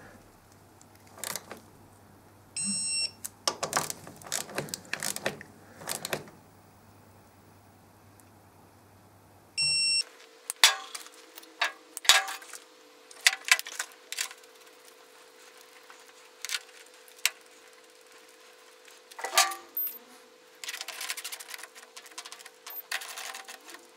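Electronic beeps from a digital torque wrench as a brake caliper bolt is tightened, signalling the set torque has been reached: one about three seconds in and a short one near ten seconds, amid scattered clicks and knocks of tool handling.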